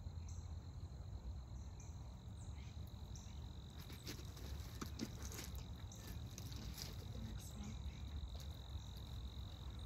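Honeybees humming around an opened hive, under a steady high insect trill, with scattered faint clicks.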